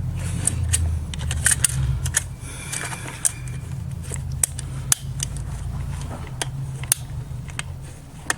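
Irregular small clicks and taps of metal parts being handled as a spring is worked into place on a Kenwood Chef mixer's speed controller, over a steady low hum.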